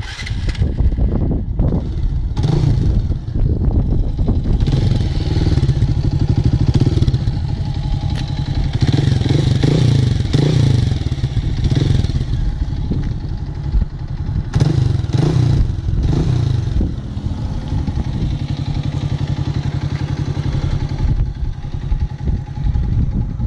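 Single-cylinder four-stroke engine of a Bajaj Pulsar 180, rebored to 208 cc with a new aftermarket exhaust, running at idle and revved a few times, heard close to the silencer.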